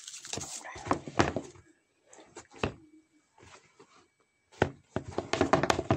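Rapid series of sharp taps and knocks: a flurry over the first second and a half, a few single knocks, a short quiet gap, then a dense run of quick clicks from about four and a half seconds in.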